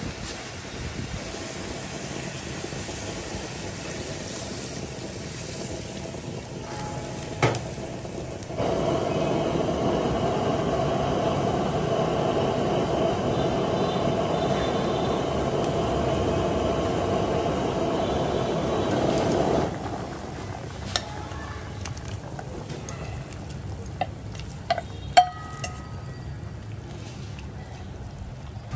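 Puffer fish sour soup cooking in a wok on a gas burner: a steady sizzling and bubbling, much louder through the middle stretch, then quieter with a few sharp clinks of utensils against the pan in the last part.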